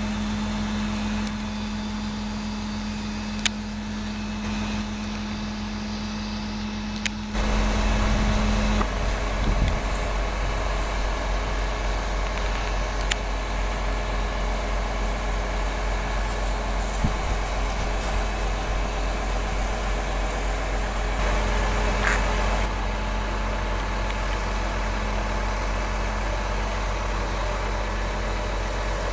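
Mobile crane's diesel engine running steadily while hoisting and swinging a load, getting louder with more low rumble about seven seconds in. A few faint clicks are heard over it.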